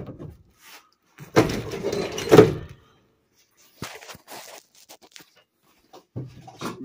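School bus's folding entry door being worked: a rattling rush of about a second and a half that ends in a sharp thunk, followed by a few light clicks.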